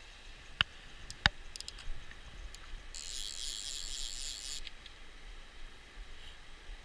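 A fly reel's click-pawl ratchet rattles for about a second and a half as line is wound in. Before it come two sharp clicks and a few lighter ticks. A faint stream flows underneath.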